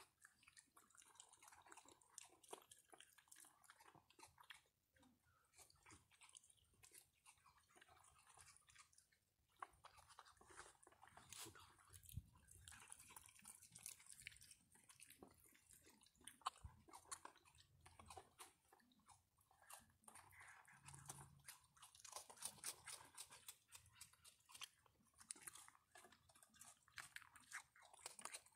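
Raccoons chewing and crunching food at close range: a quiet, steady run of quick, crisp crunches.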